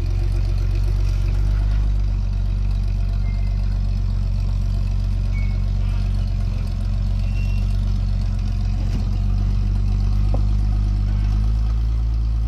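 Off-road vehicle's engine running steadily at low revs, a deep even drone.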